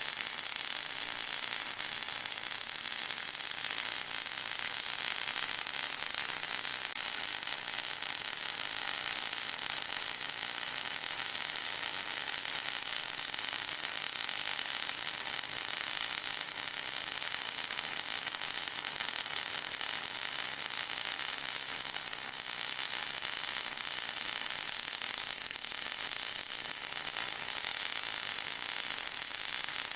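Steady, unchanging hiss weighted toward the high end and thin in the bass, with a fine crackling grain: a white-noise-type track for masking tinnitus.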